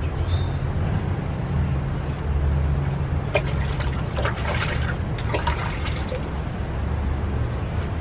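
Wood fire burning in a clay stove's firebox: a steady low rumble, with a cluster of crackles and pops from the burning wood about three to six seconds in.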